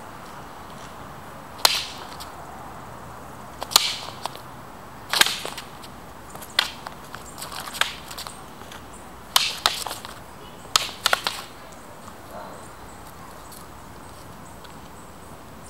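Practice rapiers clacking together in a sparring exchange: about a dozen sharp blade-on-blade strikes, some in quick doubles, spread over about ten seconds, then they stop.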